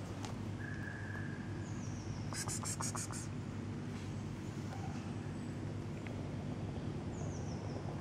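Outdoor ambience: small birds giving short, high, falling chirps twice and a quick run of rapid high chirps about two and a half seconds in, over a steady low mechanical hum.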